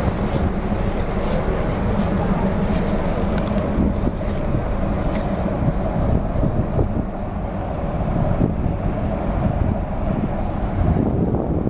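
Steady drone and rush of a river cruise ship under way, its engines running with a constant low hum.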